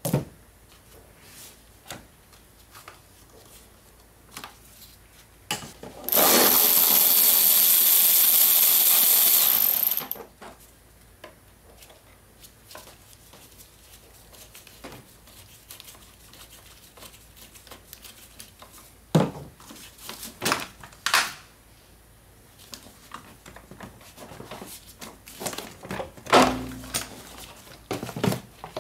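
Work on a car's air intake duct: scattered clicks and knocks of a hose clamp and plastic parts being handled. About six seconds in, a power tool runs steadily for about four seconds and stops; this is the loudest sound.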